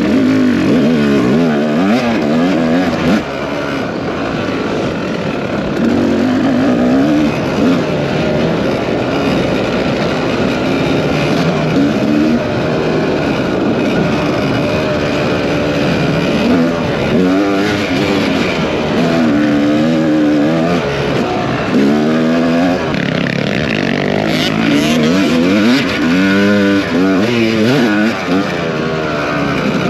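Motocross dirt bike engine racing under hard throttle, its pitch climbing and dropping over and over as the throttle is opened and closed through the gears.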